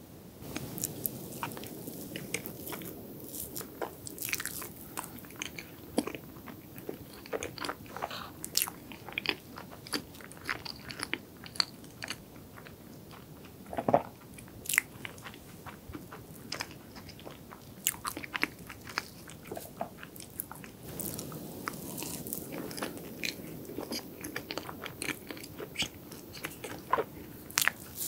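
Close-miked chewing and mouth sounds of someone eating chocolate and green tea crepe cake, with a fork cutting into the cake. Sharp small clicks run throughout, with one louder click about halfway through.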